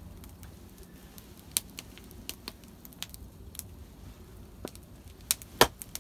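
An axe striking wood in a series of sharp, irregularly spaced knocks, about eight of them, the loudest a little before the end: light chopping of wood with a hand axe.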